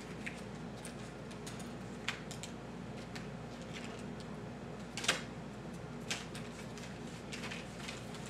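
Small diamond-painting tools (metal tweezers, plastic pen and wax containers) being picked up off a wooden table and put into a burlap drawstring bag: a scatter of light clicks and taps, the sharpest about five seconds in.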